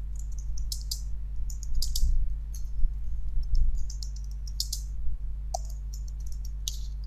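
Computer keyboard typing: irregular keystroke clicks in short runs, over a steady low hum.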